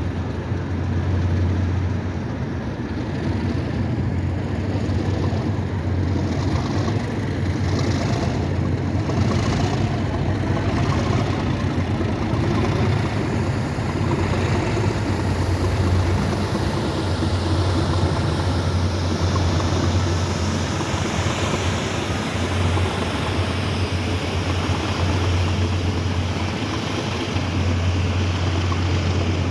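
Class 37 diesel-electric locomotives' English Electric V12 engines running, a steady deep drone.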